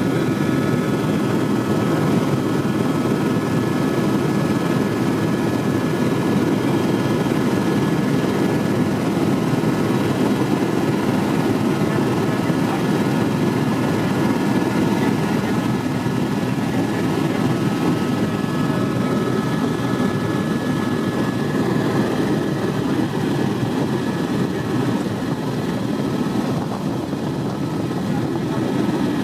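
Helicopter in flight, heard from on board: a loud, steady drone of rotor and turbine noise, with a few faint high steady tones over it.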